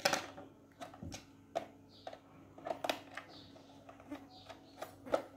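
Irregular light clicks and taps of a small screwdriver working at the screws on the plastic underside of a lamp, with parts being handled, over a faint steady hum.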